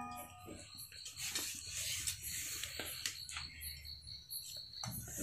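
Quiet handling sounds as a small animal carcass is cleaned by hand and knife in a metal basin of water: scattered faint clicks, small knocks and wet rubbing, over a faint steady high whine.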